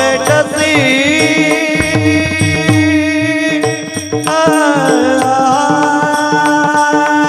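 Marathi kirtan singing: a man's voice holds long, high, ornamented notes of an abhang over a steady harmonium drone, with mridang strokes keeping the beat.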